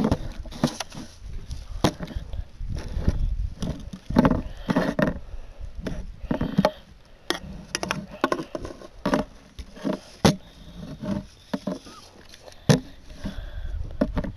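Handling noise against a plastic bucket: a steady run of irregular knocks, bumps and scrapes at uneven intervals, with a low rumble between them.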